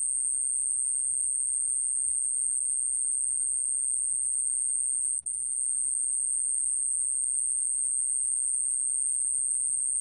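A 좀방울벌레 cricket singing a continuous, very high-pitched trill at 29 °C. The trill breaks off for an instant about five seconds in.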